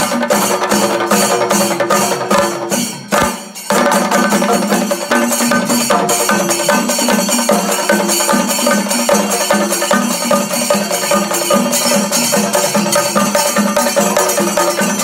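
Loud, fast percussion-driven music with a steady, driving beat. It breaks off briefly about three seconds in, then comes back.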